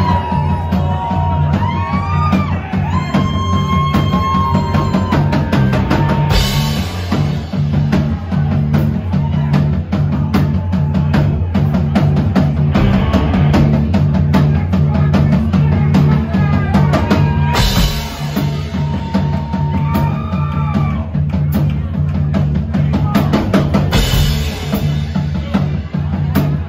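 Live rock band playing an instrumental passage: drum kit with kick and snare and a few crash cymbals, heavy bass, and a synthesizer keyboard playing a gliding lead line.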